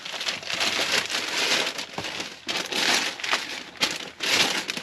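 A plastic gift bag and its wrapping crinkling and rustling in irregular bursts as a present is pulled out of it.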